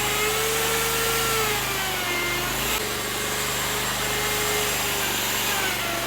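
Electric power tool running steadily, its motor pitch wavering and sagging slightly at times as it works.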